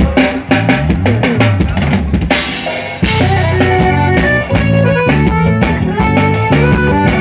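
Live band playing an instrumental passage between sung lines: a drum kit opens with a run of quick hits, then the drums, bass and guitars carry on together.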